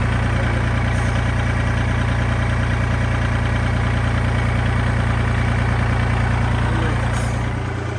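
Kubota L2501 tractor's diesel engine idling steadily.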